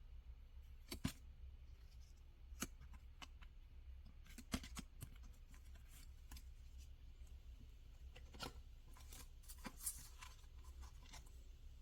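Scattered light clicks and taps of small objects being handled, over a faint low hum.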